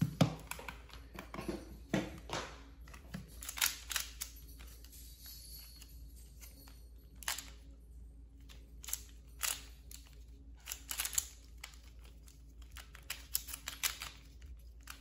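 QiYi MS pyraminx being turned fast in a speedsolve: its plastic pieces clack and click in irregular quick flurries, with a few louder clacks near the start.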